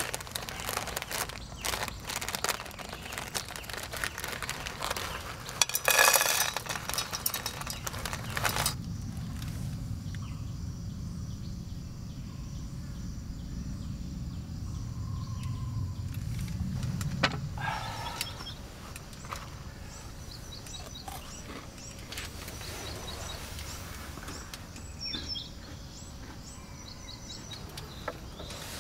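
A run of clicks and knocks, the loudest about six seconds in. From about nine seconds it gives way to quieter outdoor ambience: a low rumble that fades a little past halfway, a faint steady tone, and a few faint chirps near the end.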